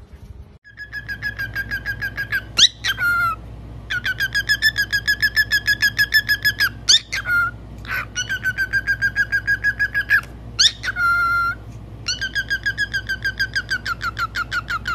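Cockatiel calling in long runs of rapid chirps, about nine a second, broken now and then by a quick upward-sweeping whistle.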